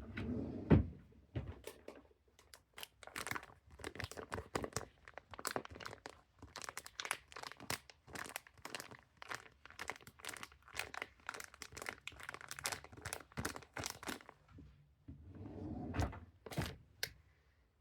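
Hands rubbing and tapping close to the microphone as ASMR hand sounds: a rapid, irregular run of dry crackly strokes, with one sharp knock just under a second in.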